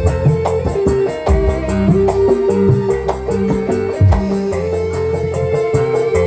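Live dangdut-style band playing an instrumental passage: an evenly pulsing drum beat and bass line under a sustained, held melody line.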